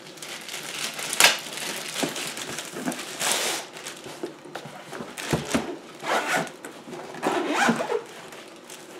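Handling of a GoPro accessory kit and its carrying case: irregular rustling and scraping, with a few sharp clicks, the loudest about a second in and about five seconds in.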